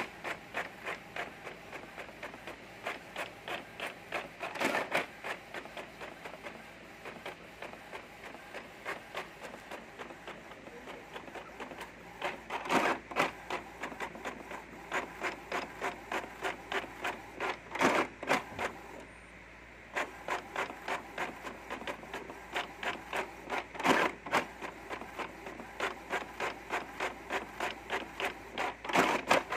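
Epson L550 inkjet printer printing: the print head carriage runs back and forth in a steady rhythm of about two to three passes a second, with a louder clack every five or six seconds as the paper feeds. The printing stops briefly about two-thirds of the way through, then resumes.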